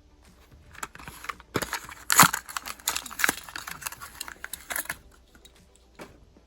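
Plastic and card packaging of a diecast toy car being handled and opened close up: a dense run of crackles and clicks, loudest about two seconds in, stopping about five seconds in.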